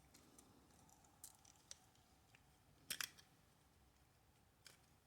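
Faint clicks and scrapes of a triangle security bit turning a small screw out of a plastic toy's back, the loudest a quick cluster of clicks about three seconds in.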